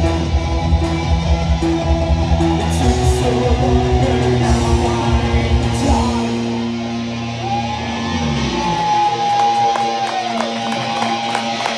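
Post-punk band playing live: bass guitar, electric guitar and keyboard in sustained, droning tones. About eight seconds in the heavy bass drops away, leaving the guitar and keyboard tones ringing on.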